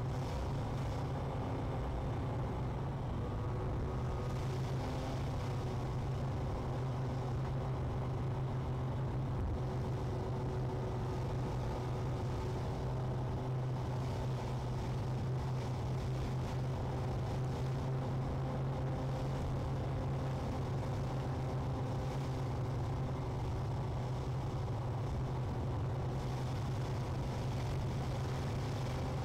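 Car driving at a steady pace, heard from inside the cabin: an even engine and road drone.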